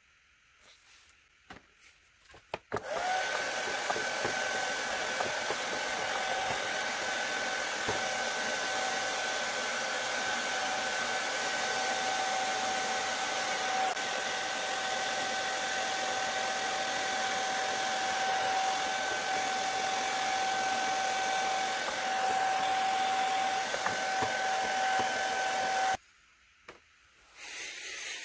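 Handheld hair dryer switched on about three seconds in, after a few light clicks, blowing steadily with a motor whine as it dries fresh paint on a leather jacket; it cuts off suddenly near the end.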